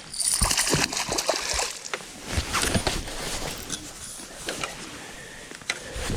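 Water splashing and sloshing, with irregular knocks and rustles, as a hooked bass is landed and handled.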